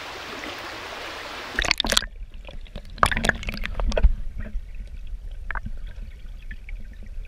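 A shallow stream running steadily, then a splash about one and a half seconds in as the camera plunges under the water. After that the stream is heard muffled from underwater: a low rumble with scattered knocks and gurgles.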